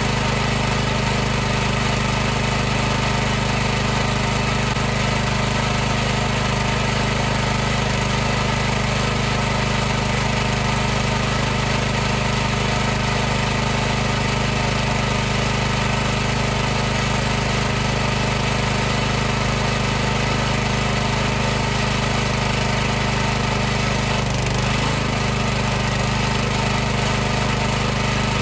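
High-pressure washer running steadily, its motor and pump giving a constant low droning hum with a hiss above. The pitch wavers briefly near the end.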